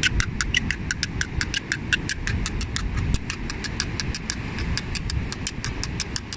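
Two seashells tapped together like castanets in a steady, even rhythm of about five clicks a second, over a steady low rumble.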